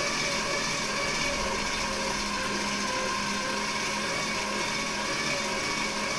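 Hand-crank blower being cranked steadily, its fan whirring with a steady whine, drawing air into a freshly lit charcoal gasifier to get the charcoal burning.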